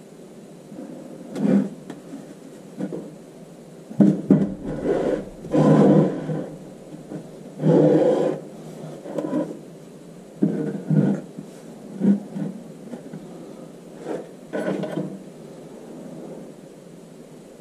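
Wooden sand-casting flask and its wooden pattern pieces being handled: a series of irregular knocks and scrapes of wood on wood and packed sand, over a steady background hum.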